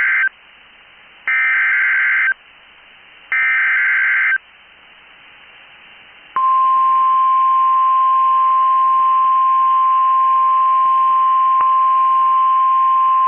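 Emergency Alert System activation on NOAA Weather Radio. The end of one SAME header data burst is followed by two more buzzy one-second digital bursts, a second apart. About six seconds in, the steady single-pitch 1050 Hz Weather Radio alert tone starts, which signals that a warning, here a special marine warning, is about to be read.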